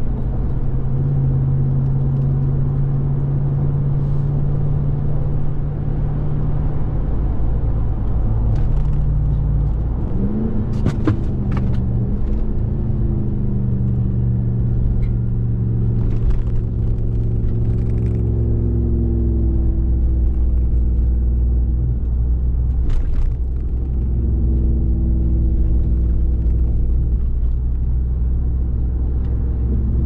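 2021 RAM 1500 TRX's supercharged 6.2-litre HEMI V8 running under way, a steady low engine tone that rises in pitch about ten seconds in and shifts a few more times as the truck speeds up and eases off. A few short clicks sound over it.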